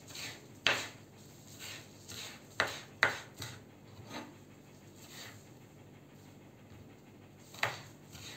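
Kitchen knife chopping fresh stinging nettle leaves on a wooden cutting board: irregular knocks of the blade on the wood, a few of them sharp. There is a lull in the second half, then one more sharp knock near the end.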